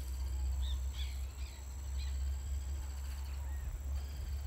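Outdoor field ambience: a steady low rumble of wind on the phone microphone, with a thin steady high whine and a few short, faint bird chirps in the first couple of seconds.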